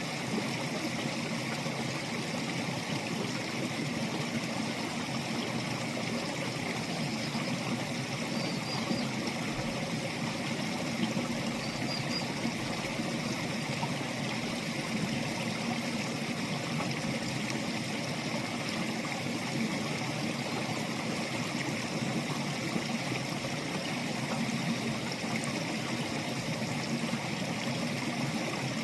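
Water of a stream flowing steadily, an even unbroken rushing and trickling.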